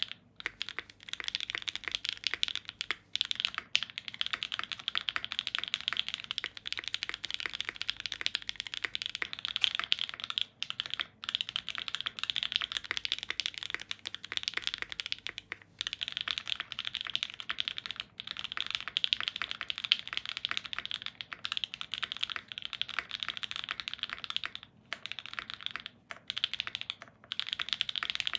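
Fast, continuous typing on a Think6.5 V2 mechanical keyboard with lubed Opblack linear switches, an FR4 plate and GMK keycaps, which the owner thinks may be a tad over-lubed. The keystrokes click in a dense stream with a few brief pauses, picked up by an Elgato Wave:3 microphone.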